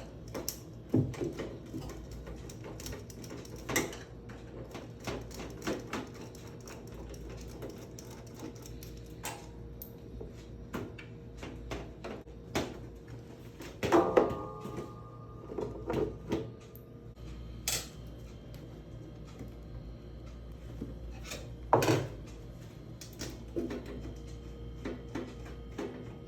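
Scattered clicks, knocks and clatter of objects being handled, the loudest about a second in, near 4 seconds, near 14 seconds and near 22 seconds, over a steady low hum.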